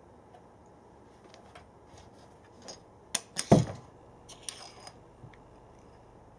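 A cat pawing at a small domino piece on a cord across a wooden floor at the gap under a door: scattered light clicks and taps, then a quick cluster of sharp knocks with one loud thump about three and a half seconds in, and a few more clicks just after.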